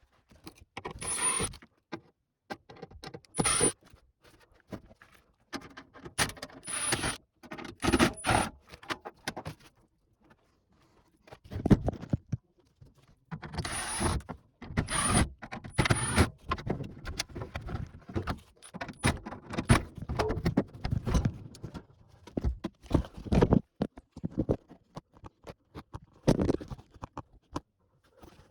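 Tools and metal parts clinking, clicking and scraping in irregular bursts, some with a short high metallic ring, as the air conditioner's indoor unit is dismantled.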